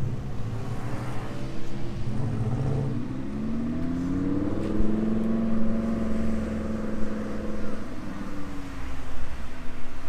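A car engine running over a low rumble, its pitch climbing over about two seconds, holding steady for a few seconds, then dropping near the end.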